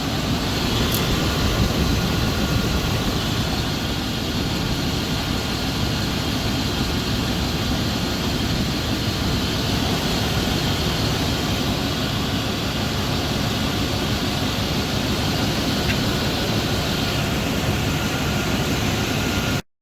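1995 K1500's 5.7 L TBI small-block Chevy V8 idling steadily; the intermittent knock, later traced to a cracked flexplate, is barely audible at this point, at most a faint tick.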